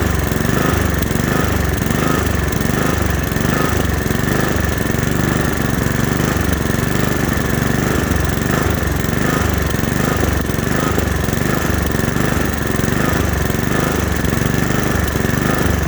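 Honda HRX217 lawn mower's single-cylinder four-stroke engine running at a steady speed, with a faint regular pulse about every two-thirds of a second.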